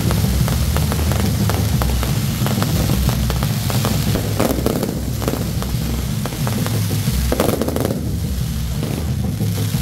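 Aerial fireworks going off: a dense run of rapid crackles and pops, over a steady low rumble.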